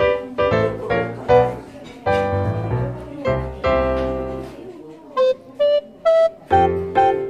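Background piano music: chords and single notes struck one after another, each fading out, with a short run of three single notes rising in pitch about five seconds in, followed by a chord.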